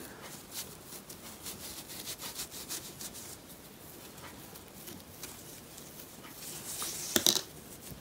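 Hands rubbing and handling a coarse jute crochet bag handle as the fingers smooth its stitches: a faint scratchy rustling with small ticks, and a louder brief rustle about seven seconds in.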